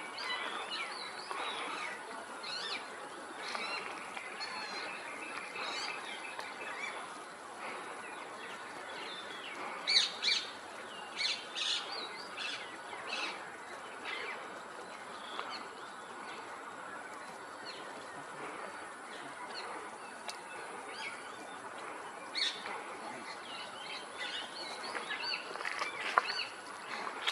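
Assorted birds chirping and calling, many short scattered notes, with a brief run of louder, sharp short sounds about ten to thirteen seconds in.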